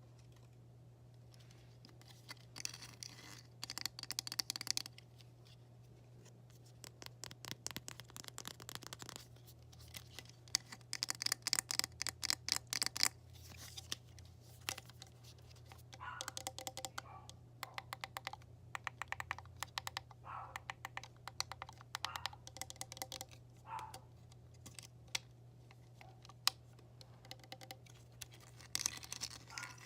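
Rapid tapping on objects in quick flurries of sharp clicks, with pauses between. From about the middle on, the taps carry a short ringing pitch.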